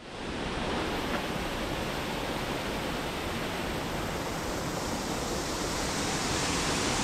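Steady rush of water from a waterfall cascading over rock into a pool, fading in quickly at the start.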